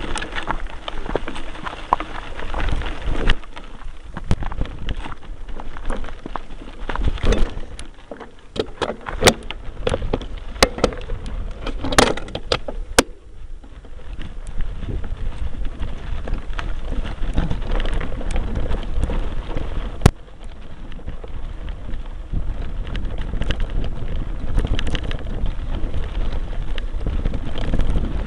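Mountain bike riding over a rough dirt and gravel track: a continuous rumble and crunch from the tyres, with sharp knocks and rattles from the bike and camera mount over bumps, clustered about halfway through. Wind buffets the microphone throughout.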